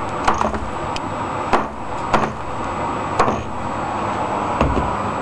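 A hot circuit board being handled and knocked so that components with melted solder drop off: about five sharp knocks spread over a few seconds, then a duller thump near the end, over a steady hiss.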